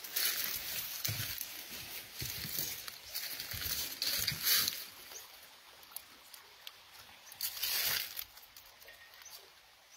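Footsteps crunching and rustling through dry fallen leaves on a wooden footbridge, in bursts through the first five seconds and once more shortly before eight seconds.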